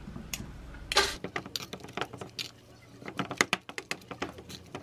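Metal spoon and knife clinking and scraping against a bowl while stirring Greek yogurt with dried-persimmon jam: an irregular run of sharp clinks that starts about a second in.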